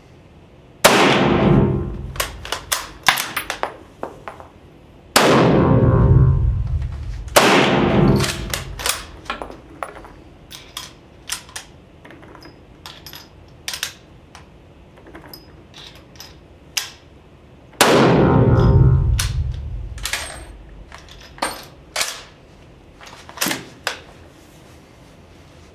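Spanish Mauser FR8 rifle (7.62×51 mm) firing four shots, with light 13-grain Trail Boss loads behind coated lead bullets, each report echoing and dying away over about a second and a half. Between the shots come metallic clicks and clacks of the bolt being worked and rounds being handled.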